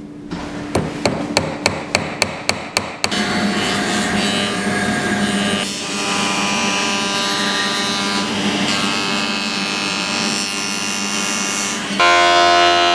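A nail tapped with a hammer into the centre of a wooden disc, about four sharp taps a second for a couple of seconds. Then a spindle moulder runs steadily, cutting the disc's edge, and gets louder near the end.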